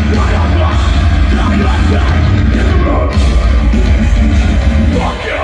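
A metalcore band playing live at full volume: distorted guitars, bass and drums with vocals, dominated by a heavy low end.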